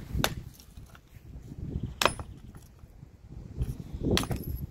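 Hatchet splitting a small block of hickory into chunks: three sharp strikes about two seconds apart.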